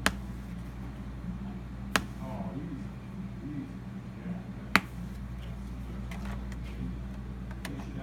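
A few sharp, isolated clicks a couple of seconds apart, over a steady low electrical hum.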